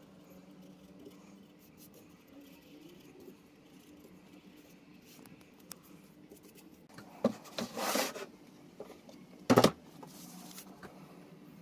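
Faint strokes of a paintbrush spreading finish on a painted wooden table frame. About seven seconds in, louder scraping and rustling as the wooden frame is handled, then a single sharp knock about two seconds later.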